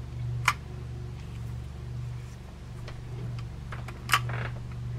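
Two sharp clicks about three and a half seconds apart, with faint ticks between, from a small spinning reel and parts being handled on a workbench, over a steady low hum.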